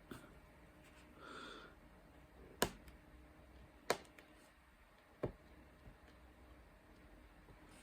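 Sharp taps while working on a craft canvas: three clear taps about a second and a half apart, a fainter tap at the start and a soft rustle about a second in.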